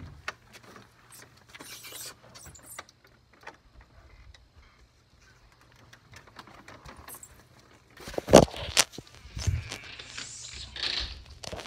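Handling noise from a phone being moved and covered: scattered light clicks at first, then a cluster of loud bumps and rustling from about eight seconds in, the loudest bump near the start of that cluster.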